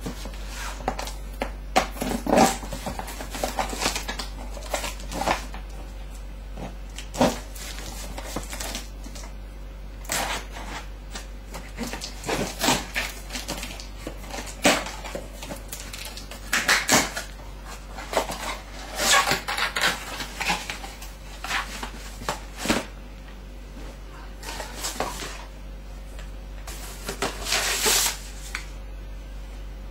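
Irregular rustling, clicks and knocks from handling the sneakers and their packaging during unboxing, over a low steady hum.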